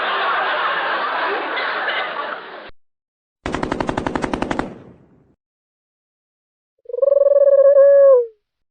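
A run of stock sound effects. First a crowd laughing, fading out about three seconds in. Then a burst of machine-gun fire just over a second long, about fifteen rounds a second, and near the end a steady electronic buzzing tone like a phone ringing.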